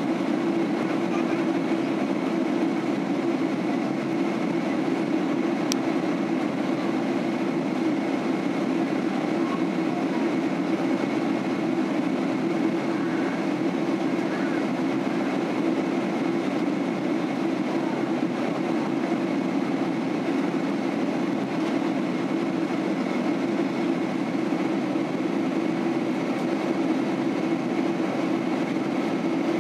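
Steady cabin noise of a Boeing 767-300 airliner in flight, heard from a window seat by the wing: the even drone of its turbofan engines and the rush of air over the fuselage. A faint steady high whine runs through it, and there is one tiny tick about six seconds in.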